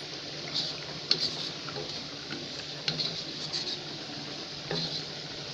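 A wooden spatula stirring fish curry in a stainless-steel wok, with several light scrapes and taps against the pan.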